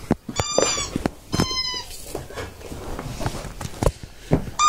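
A dog's squeaky toy being bitten and squeezed by a shih tzu: two long, high squeaks in the first two seconds and a quick pair of short squeaks near the end, with light knocks from the dog handling the toy between them.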